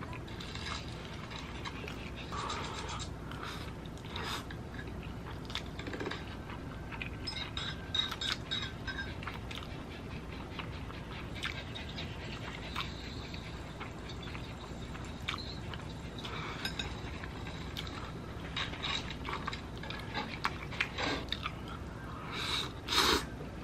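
A person slurping and chewing spicy stir-fried instant noodles (Buldak Bokkeumtang-myeon) eaten with chopsticks: scattered wet slurps and chewing noises, with a louder slurping burst near the end.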